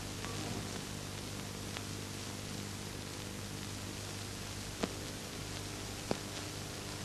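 Steady hiss and low hum of an old film soundtrack, with a few sharp clicks of print crackle, the two strongest near the end.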